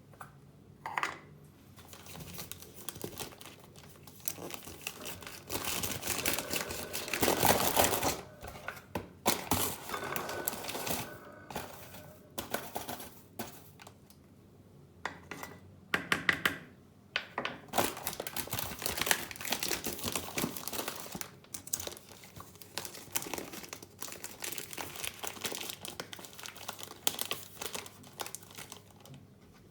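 Packaging being handled, crinkling and rustling in irregular bursts with some tearing, loudest about seven seconds in.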